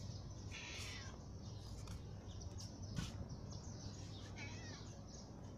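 Faint outdoor background hum with a short animal call about four and a half seconds in and a single sharp click about three seconds in.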